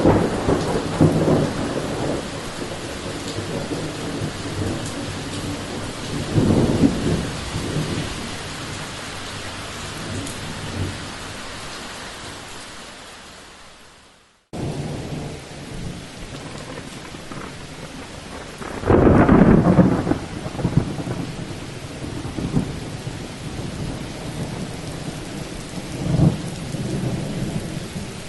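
Thunderstorm: rumbles of thunder rolling over steady rain. The sound fades out about halfway and a new stretch of storm starts at once; its loudest peal of thunder comes a few seconds later, and a smaller one follows near the end.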